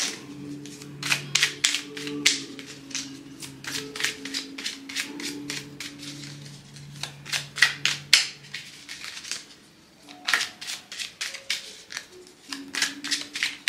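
Deck of oracle cards being shuffled by hand: a rapid, irregular run of card clicks and slaps, with a short lull about ten seconds in. Soft background music with sustained low notes plays underneath.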